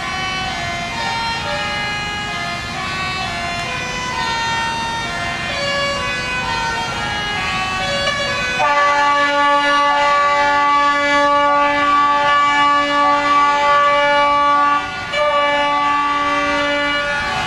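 Truck air horns blaring at several different pitches, overlapping over a low rumble. About halfway through the rumble drops away and a steady chord of held horn notes sounds, broken off briefly near the end.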